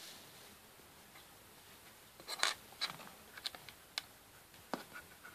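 Small plastic clicks and taps from handling the remote control module as it is plugged into an Android phone. A few seconds of quiet, then a short run of sharp clicks, the loudest about two and a half seconds in.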